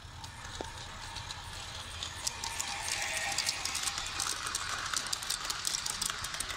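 Gauge 1 model train running past on its outdoor track, its wheels clicking and rattling rapidly on the rails. It grows louder about two seconds in as it passes close by.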